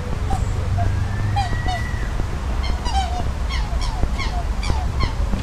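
Birds calling: a string of short, sharp chirps repeated irregularly, with a slow rising whistle about a second in, over a steady low rumble.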